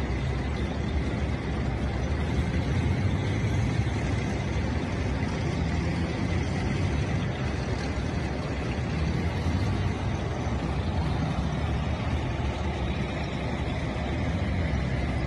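A column of Soviet-era armoured vehicles (light tanks, self-propelled howitzers and armoured personnel carriers) driving past. Their engines make a steady, heavy, low noise that runs without a break.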